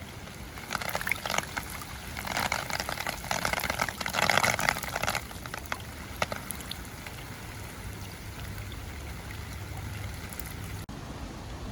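Raindrops hitting an umbrella and splashing into a puddle, with a dense spell of crackling drops between about one and five seconds in, then scattered single drops over a low steady rumble.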